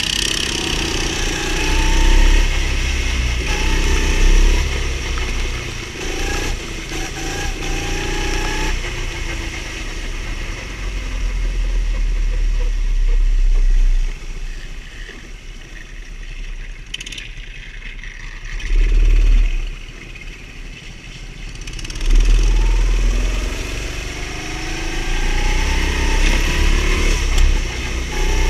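Go-kart engine heard from onboard, its pitch rising and falling as the driver accelerates and eases off through the corners, with low rumbling wind noise on the camera microphone. About halfway through the engine drops back and stays quieter for several seconds, then picks up again.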